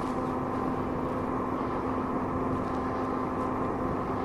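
Steady vehicle drone heard from inside a moving car: engine and road noise with a constant hum, unchanging throughout.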